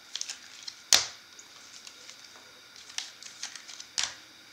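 Trading cards and a clear hard plastic card holder being handled and set down on a table: light ticks and rustles, with a sharp knock about a second in and another near the end.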